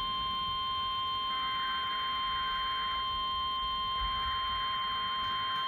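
NOAA Weather Radio 1050 Hz warning alarm tone: one steady pitch, heard through a radio receiver with a faint hiss that swells twice. The tone signals that a warning message is about to be broadcast.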